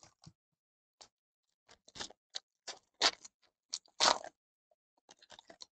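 Foil wrapper of a trading card pack being torn open and crinkled by hand: a run of short, sharp crackles, loudest about four seconds in, with a quicker cluster of small crinkles near the end.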